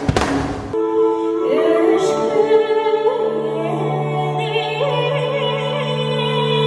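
A loud, dense burst of music stops abruptly under a second in, giving way to throat singing: a steady low drone held underneath while a high, whistling overtone melody wanders above it.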